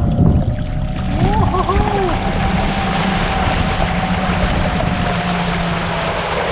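Electric kayak's brushless motor driven at full throttle, drawing about a kilowatt: a steady motor hum under the rushing of the wake and spray, which swells about a second in as the kayak speeds up.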